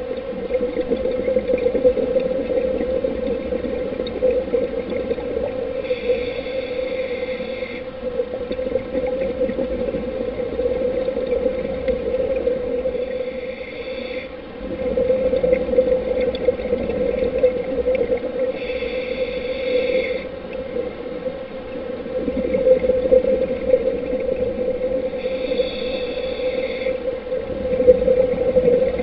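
Underwater sound on a scuba dive: a steady low drone under a muffled watery rush, with the hiss of a diver breathing through a scuba regulator coming back about every six or seven seconds.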